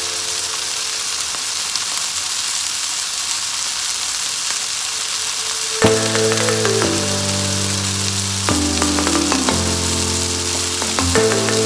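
Chicken pieces and diced onion sizzling in hot oil in a wok, a steady hiss. From about halfway, background music with slowly changing chords plays over it.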